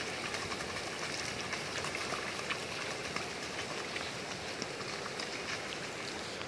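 Steady rain falling on a wet street: an even hiss with a few faint, scattered ticks.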